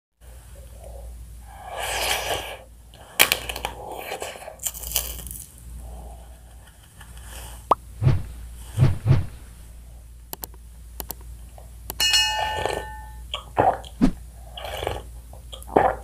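Close-miked eating sounds: bites and crunches into chocolate-coated ice cream and chocolate snacks, with wet mouth plops, clicks and gulps coming irregularly.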